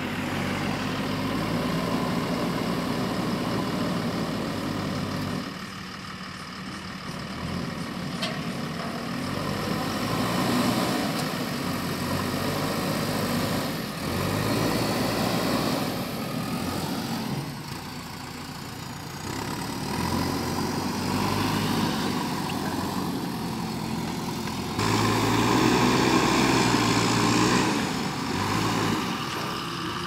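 Diesel engine of a JCB backhoe loader running as it digs and loads earth into a dump truck, the engine note rising and falling with the load. The sound jumps abruptly in level several times.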